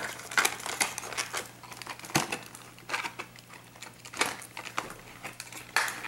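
Clear plastic blister packaging being handled and worked open, crinkling and crackling with irregular sharp clicks, the sharpest one near the end.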